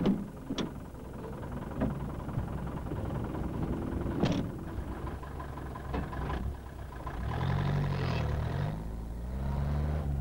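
Small flatbed truck's engine running as the truck drives off. Its pitch rises and falls twice in the last few seconds. A few sharp knocks come earlier.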